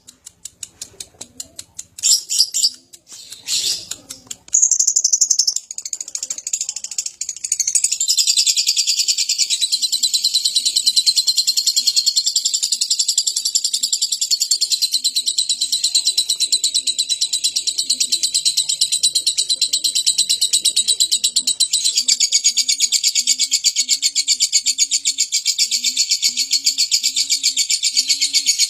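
Lovebird giving a long 'ngekek': after several seconds of scattered clicks and chirps, a rapid, high-pitched chattering trill starts about eight seconds in and carries on without a break. Low, soft coos repeat regularly in the background in the later part.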